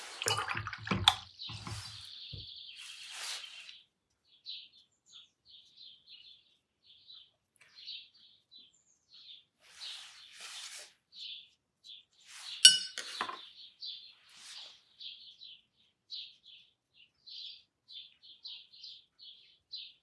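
A paintbrush clinking against ceramic paint dishes and a water pot and being swished in the water in the first few seconds, then a run of short, soft, scratchy watercolour brush strokes on paper, with one sharp clink of the brush on the palette about two-thirds of the way through.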